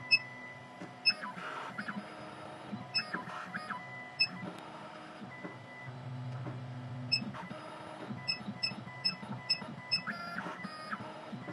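Stepper motors of a CNC key cutting machine whining in stepped pitches as the machine traces the original key to decode its cuts. The whine is broken by light, regular ticking, about three ticks a second near the end.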